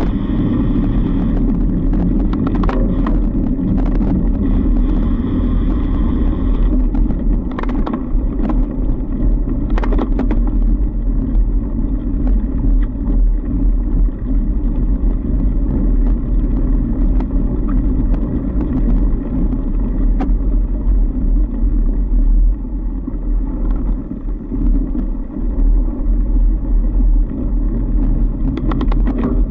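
A fat bike riding along a packed-snow trail: a steady, loud low rumble of tyres and wind on the microphone, with a few sharp clicks and rattles from the bike.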